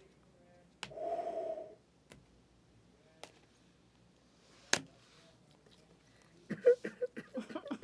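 Mostly quiet room with a few sharp clicks, one louder near the middle, and a short breathy exhale about a second in; low voice sounds begin near the end.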